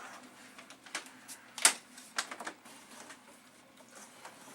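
A few scattered sharp clicks and knocks of small hard objects being handled and set down, the loudest about one and a half seconds in, followed by a quieter stretch.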